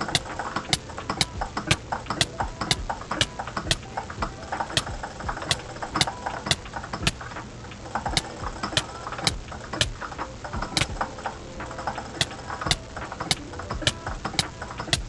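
Computer keyboard keys and mouse buttons clicking in an irregular run, several clicks a second, with the odd louder click standing out.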